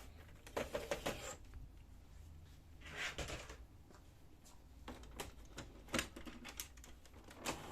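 Plastic paper tray of a Brother DCP-7055 laser printer being handled and pulled out: scattered plastic clicks and knocks, with a short sliding scrape about three seconds in.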